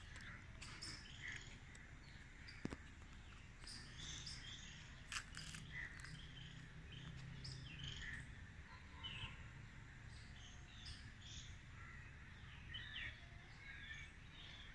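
Faint outdoor birdsong: many short chirps and calls from several wild birds, scattered irregularly, over a steady low background rumble, with a couple of sharp clicks.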